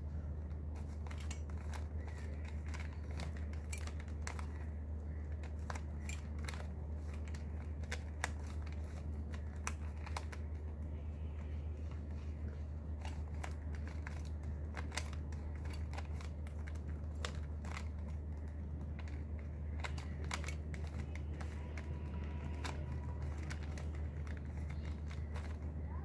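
Plastic Rubik's Cube being turned by hand: irregular clicks and clacks as its layers are twisted, over a steady low hum.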